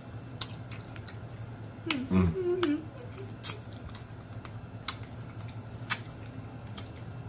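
Mouth noises of eating seafood by hand: scattered sharp smacks and clicks of lips and teeth on crab and shrimp shell. A short murmured voice sound comes about two seconds in, over a steady low hum.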